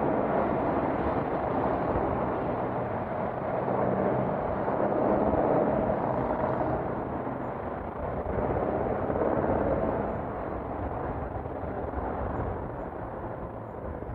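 Wind and road noise from riding a bicycle, a continuous rushing that swells and eases every few seconds.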